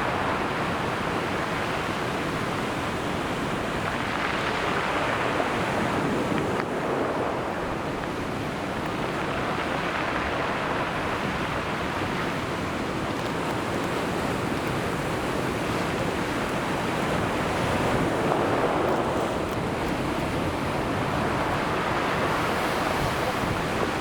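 Sea waves breaking and washing on the shore: a continuous rush that swells and eases every few seconds.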